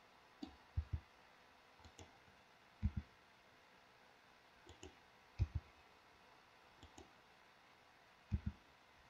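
Faint clicks of a computer mouse and keyboard, mostly in quick pairs, every second or two.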